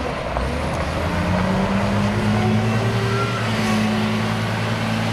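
Caterpillar 950F-2 wheel loader's six-cylinder diesel engine running as the machine drives, its note rising about a second in and then holding steady.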